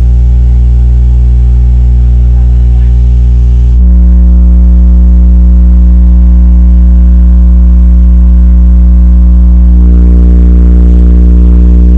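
Truck-mounted sound-system subwoofers sounding steady, very loud low test tones during the RTA sound-check of the sub section. The tone changes abruptly about four seconds in and shifts again near the end.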